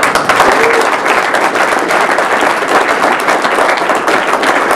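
A crowd of people applauding, a dense steady clapping.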